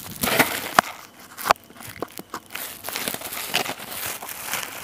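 Close rustling and scraping with several sharp clicks and knocks as someone scrambles up bare rock, the handheld phone rubbing and bumping as they climb.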